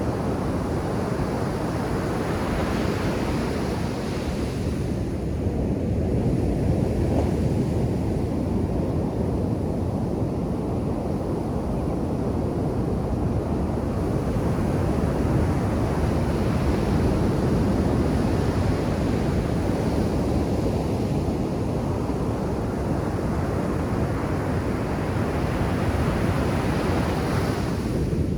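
Ocean surf breaking on a beach: a steady low rush of waves, with the hiss of breaking water swelling and easing several times.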